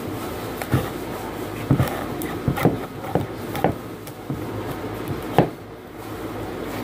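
Kitchen knife being forced down through the hard rind of a spaghetti squash stood on end, cutting it in half lengthwise. It gives a series of irregular knocks and thumps, the loudest about five seconds in.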